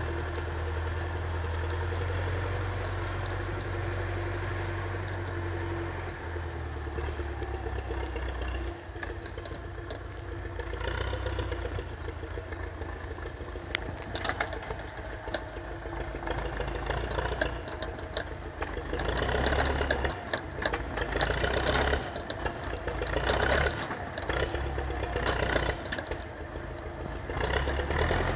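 MTZ-82 tractor's four-cylinder diesel engine running steadily, with clatter and rattling building up over the second half as the loaded forestry trailer comes closer.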